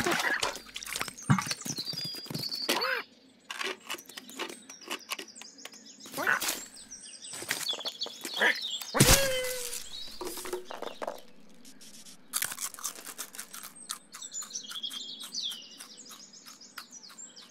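Cartoon sound effects for a cat chasing a squirrel: birdsong chirping in the background, with quick clicks, scuffles and short squeaky animal cries. The loudest cry comes about nine seconds in.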